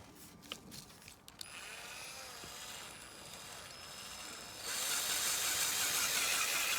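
A cordless drill spinning a blender's blade drive, run in place of the blender's own motor. After a few clicks it starts and runs steadily with a thin whine, then about three seconds later it speeds up and gets much louder as the blades churn frozen banana.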